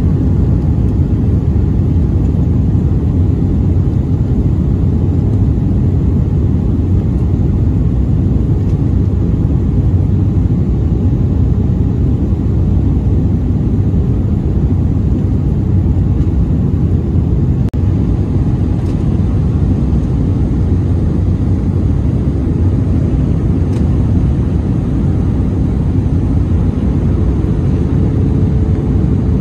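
Steady low cabin rumble inside an Airbus A320 on approach: engine noise and airflow over the wing with its flaps extended, an even roar weighted to the low end.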